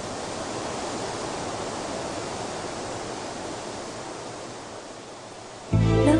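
A steady rushing noise like wind, swelling a little and then easing off. Near the end, music with a strong bass cuts in suddenly.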